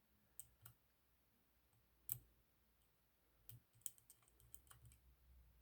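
Faint, sparse metallic clicks of a lock pick working the spring-loaded pins inside a Kaba 6 lock under tension, with one sharper click about two seconds in and a quick run of small clicks near the end.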